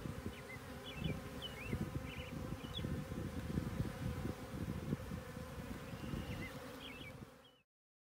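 Honeybees buzzing at the entrance of a hive, a dense, wavering low hum, with a few faint high chirps above it. The sound cuts off abruptly near the end.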